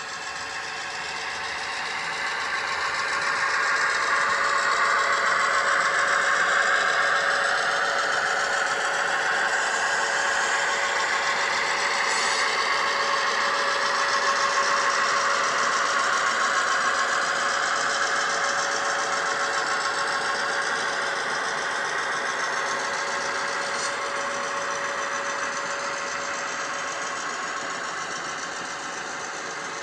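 HO scale model train running along the track, a steady whirr and rattle of its wheels and motor with a constant hum underneath. It grows louder over the first few seconds, holds, and fades somewhat toward the end as the train passes.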